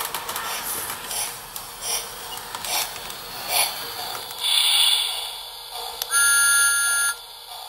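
Lionel O-gauge Thomas the Tank Engine toy train running into the station with its electronic sound system on: clicking and chuffing from the train on the track, a loud hiss of steam about four and a half seconds in as it comes to a stop, then a steady electronic whistle tone for about a second.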